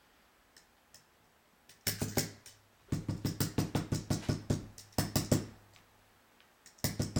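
Deer-hair stacker being tapped repeatedly on the tying bench to even up the hair tips. It gives rapid sharp knocks, about six a second, in three spells starting about two seconds in.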